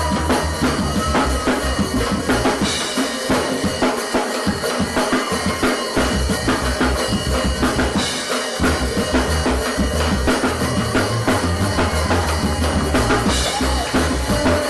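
Live band playing a steady groove, with the drum kit's kick, snare and rimshots and the bass guitar to the fore.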